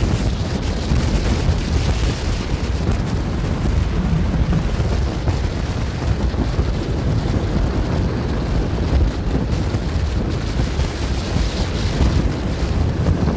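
Wind buffeting the microphone: a loud, steady, irregular low rumble with no engine note in it.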